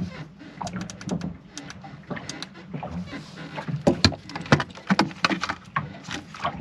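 Irregular run of small clicks and knocks from hands at work, loudest a few seconds in, over a low steady hum.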